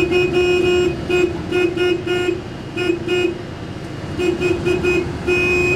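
A car horn honking in quick runs of short toots, with one longer toot near the end, over steady road noise heard from inside a moving car.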